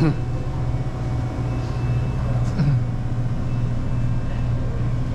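Steady low electrical hum of refrigerated drink coolers, with two brief falling-pitch squeaks, one at the very start and one about two and a half seconds in.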